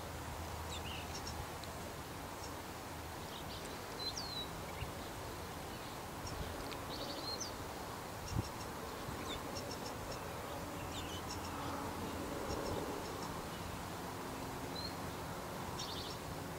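Small birds chirping faintly now and then, short high chirps and ticks with one brief sweeping note, over a steady outdoor background hiss. A single brief thump about eight seconds in.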